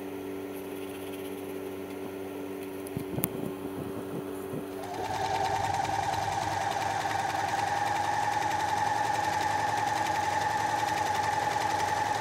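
Electric sewing machine running steadily, stitching fabric, starting about five seconds in. Before that there is a low steady hum with a few light clicks.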